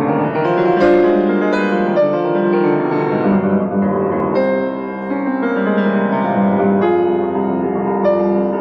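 Grand piano played solo, many notes ringing and overlapping as chords and a melody move along.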